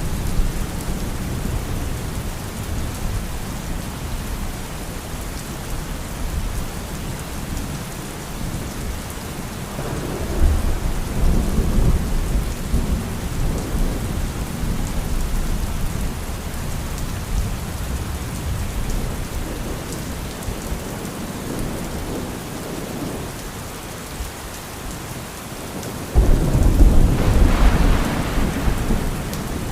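Steady rain falling with rolling thunder: a low rumble swells about ten seconds in, and a louder, sudden thunderclap breaks out near the end and rumbles on.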